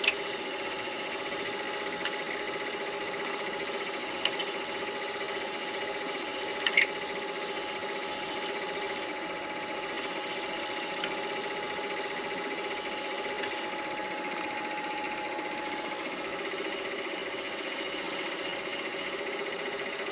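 Midi lathe running steadily with an even motor hum, with a few brief sharp ticks a few seconds in and again near the middle.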